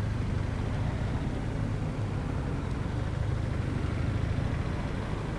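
BMW R1200RT boxer-twin motorcycle running steadily under way through town, its engine sound mixed with wind and road noise on the camera microphone.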